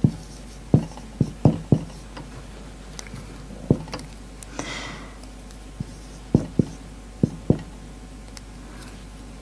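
Marker writing on a whiteboard: an irregular scatter of short, light taps as the tip meets the board.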